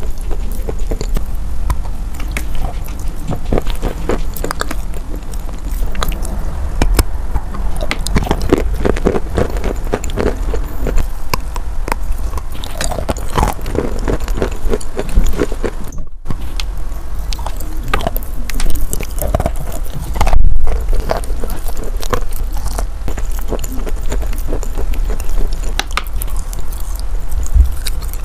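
Close-miked biting and chewing of a soaked chunk of chalk: a continuous stream of irregular wet crunches and crackles. The sound cuts out briefly about sixteen and twenty seconds in.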